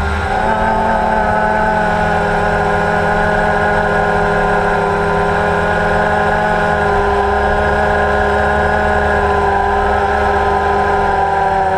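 Multirotor drone's motors and propellers humming steadily, several tones held together with small shifts in pitch.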